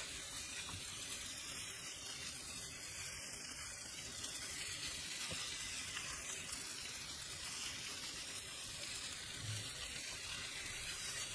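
Chicken drumsticks frying in oil in a pan, a steady sizzle.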